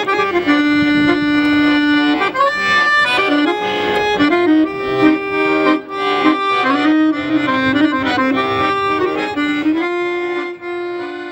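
Solo chromatic button accordion playing a melody of held notes and chords, settling near the end on one long sustained chord.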